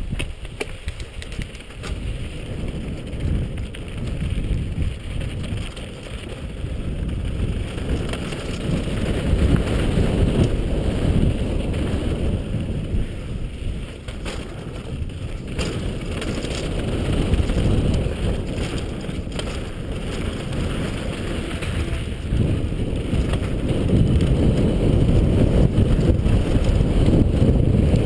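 Low, rumbling wind noise buffeting the microphone, rising and falling and louder over the last few seconds, with a few faint clicks or rattles.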